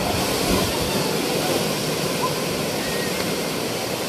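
Sea waves breaking and washing into the shallows: a steady, loud rush of surf.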